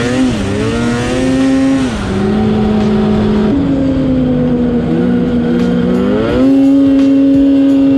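Polaris Switchback Assault 850 snowmobile's two-stroke engine under way on the trail, its pitch climbing and falling as the throttle is worked: up near the start, down about two seconds in, up again, then climbing and holding high over the last second and a half.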